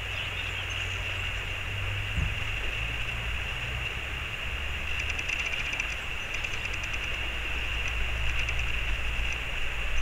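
Steady rushing of a mountain stream with a low wind rumble on the microphone. Faint rapid high chirping comes in around the middle.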